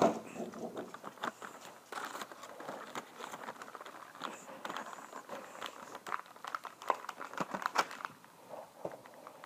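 Toy packaging being handled and opened: irregular crinkling and rustling of plastic and cardboard with scattered sharp clicks, and a loud knock right at the start.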